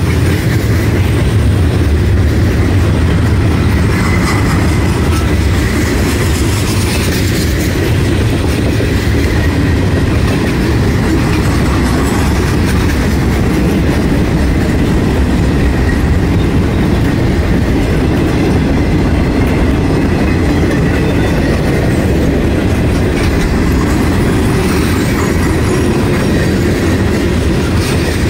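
Freight cars of a long mixed freight train (gondolas, boxcars and tank cars) rolling past close by: a steady loud rumble with the clickety-clack of steel wheels on the rails.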